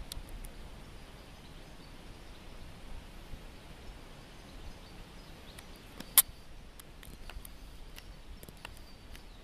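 Quiet outdoor background noise with a few faint, scattered clicks and one sharp click about six seconds in.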